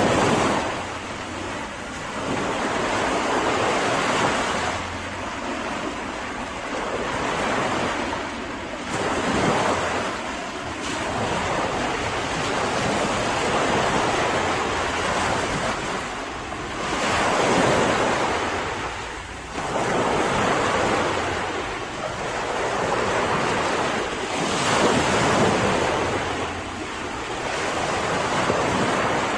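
Mediterranean sea surf washing onto a beach, rising and falling in irregular swells every few seconds.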